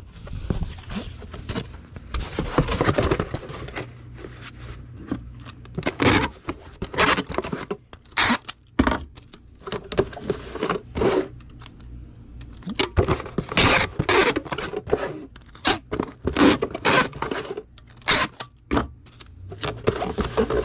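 A small cardboard shipping box being handled and folded: irregular scraping, rustling and tearing sounds of cardboard and packing material.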